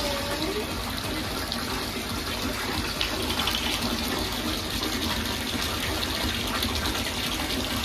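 Bathtub tap running, a steady gush of water filling the tub.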